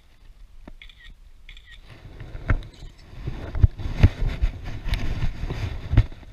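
Water splashing and sloshing in a shallow stream as someone wades and handles the water, starting about two seconds in, with several heavy thumps mixed in.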